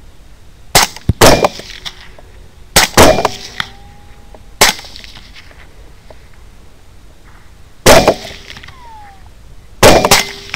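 A quick string of about seven rifle shots from two hunters firing together, one rifle a 6.5 Grendel. Shortly before the last shot comes a short falling whine: a ricochet, the sign of a bullet tumbling in flight and quickly bleeding off velocity and energy.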